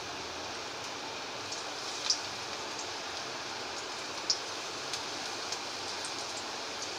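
Hot cooking oil sizzling steadily in a kadai as pieces of semolina (sooji) pakoda batter deep-fry, with a couple of brief sharper pops.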